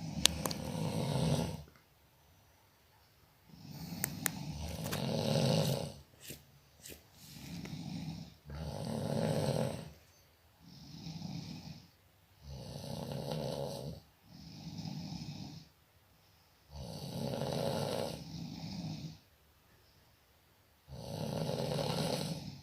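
A person snoring: about nine loud snores, each one to two and a half seconds long, coming every two to three seconds with quiet gaps between.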